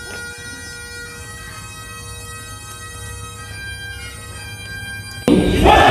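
Bagpipes playing a tune over their steady drones. Near the end a loud chorus of many voices shouting together starts suddenly.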